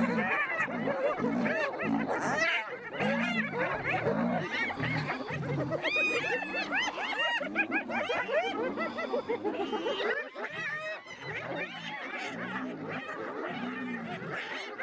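Spotted hyenas giggling: many quick, high, laugh-like calls that rise and fall in pitch, overlapping one another, over a run of low repeated grunts.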